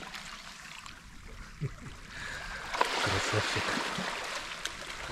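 Small waves washing on a pebble beach, a steady hiss of water that swells about two seconds in and eases off again, with a few faint clicks.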